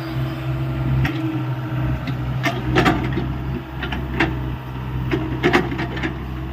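Hyundai 85A mini excavator's diesel engine running steadily under load, with irregular sharp knocks and clatters as it digs.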